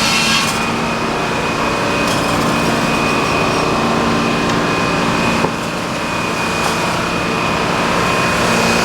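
Sawmill machinery running steadily under engine power. A hissing burst of saw-cutting noise at the very start stops about half a second in, leaving the engine's steady hum.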